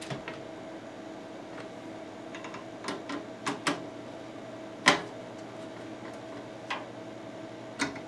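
Screwdriver tightening motherboard mounting screws into the metal standoffs of a PC case: scattered small clicks and taps of the tool and screws on metal, the sharpest about five seconds in, over a steady faint hum.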